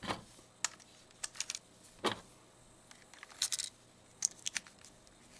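Batteries being loaded into a Sony S40 digital camera's battery compartment: a series of short plastic clicks and knocks, some in quick clusters.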